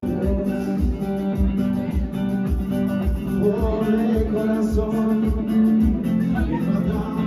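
Background music: Latin-style plucked acoustic guitar over a steady beat, starting abruptly.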